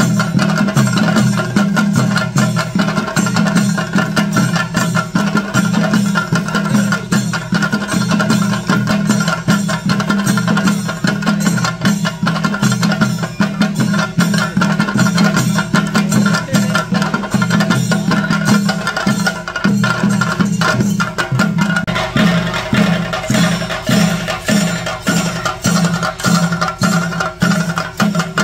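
Chenda drums played fast by a group of drummers: a dense run of stick strikes over a steady ringing tone. About two-thirds of the way through, the low beat turns into clear, even pulses.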